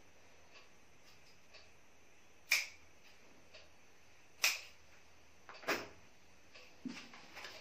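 Cloth bandage being wound around a wrist, with three sharp snaps of the strip about two seconds, then just over a second, apart, and smaller clicks and rustles near the end.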